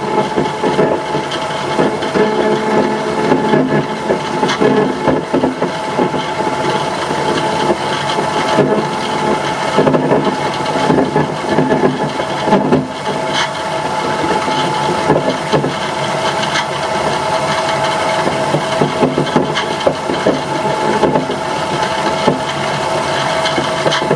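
Hollander beater running: its electric motor turns the beater roll, which churns flax fibre and water in the trough with a loud, steady hum over a constant grinding, rubbing noise.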